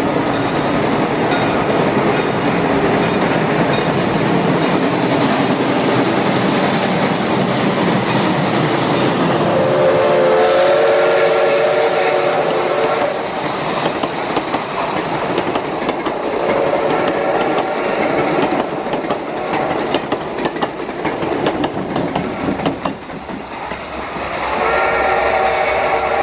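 Pacific-type steam locomotive No. 425 passing with its train: a steady rush of steam and running gear, with its steam whistle sounding a chord for about three seconds, starting about ten seconds in, and again near the end. In between, wheels click over the rail joints as the cars roll by.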